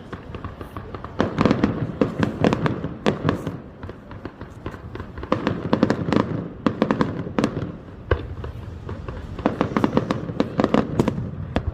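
Fireworks display going off in rapid volleys of bangs and crackles. There are three dense bursts: about a second in, around five seconds in and around nine seconds in, with brief lulls between them.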